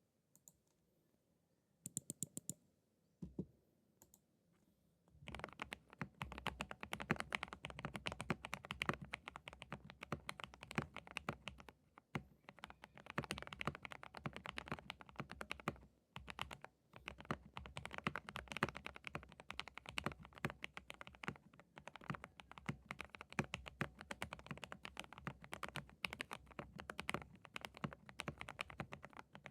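Typing on a mechanical keyboard with lubed Gateron Milky Yellow linear switches and PBT keycaps. A few separate key presses come first, then steady, fast typing from about five seconds in.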